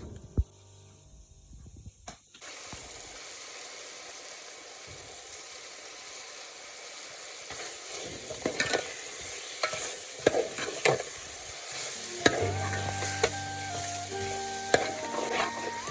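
Vegetables frying in a pan: a steady sizzle starts a couple of seconds in, with clicks and scrapes of stirring from about halfway. Background music comes in near the end.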